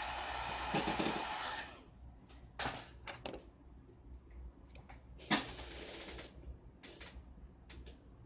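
A heat gun blowing hot air with a steady hiss that cuts off after about a second and a half, used to soften adhesive before prying phone parts off. Then come scattered small clicks and short scrapes of tools on the phone's frame.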